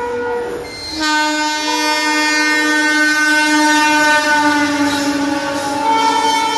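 Indian Railways electric locomotive sounding its horn while passing at speed: a short horn note cuts off, then about a second in comes one long blast lasting about five seconds, its pitch sinking slowly as the locomotive goes by. The rumble and clatter of the train's wheels on the rails runs underneath.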